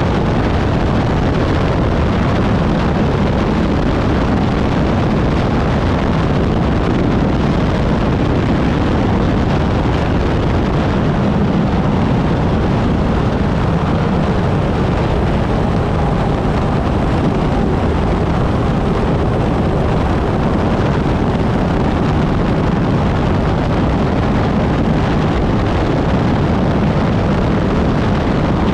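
Unlimited hydroplane's Lycoming T55 turbine engine running at race speed, a steady, loud, unbroken rush of engine and wind noise over the onboard microphone.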